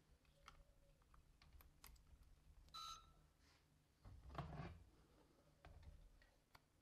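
Faint clicks and handling noise as the RC tank's battery and ESC wiring connectors are handled and plugged together, with a short sharp click a little under three seconds in. About four seconds in there is a louder rustle of a sleeve brushing close to the microphone.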